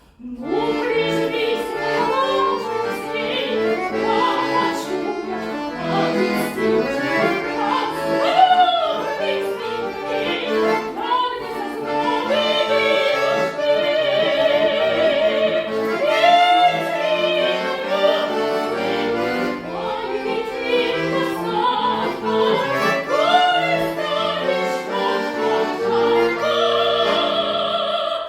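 Classical-style vocal performance: a trained voice sings a sustained melody with wide vibrato over instrumental accompaniment of long held chords.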